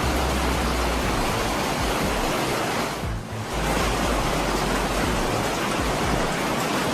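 Heavy hailstorm: a dense, steady roar of hail and rain pounding down, with a brief lull about three seconds in.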